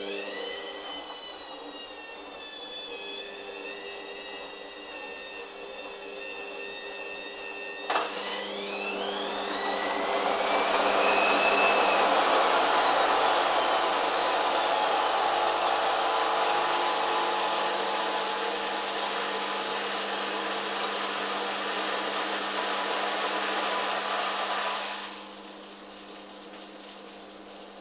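Hoover washing machine on its final spin: a steady motor whine, a click about 8 s in, then the motor speeds up with a rising whine over loud drum rush. The whine then slowly falls away, and the noise drops off suddenly near the end as the spin cuts out.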